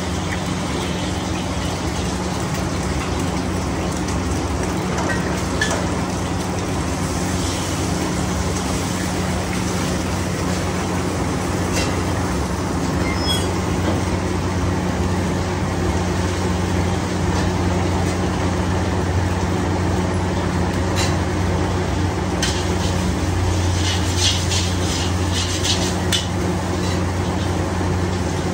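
Automatic fried-rice machine running: a steady motor hum over the constant rush of its gas wok burners, with scattered light clicks and scrapes from its stirring arms working in steel woks, and a quick cluster of them near the end.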